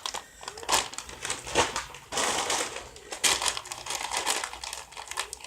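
Crinkly plastic snack packaging, a bag of chips, being handled and crinkled in a string of irregular bursts.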